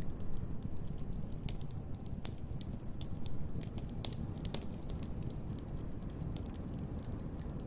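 Wood fire burning in a fireplace: a steady low rumble of flames with irregular sharp crackles and pops of burning logs.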